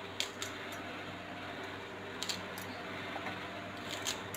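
A few faint clicks and taps as bananas are set down on a plastic plate, over a steady low hum.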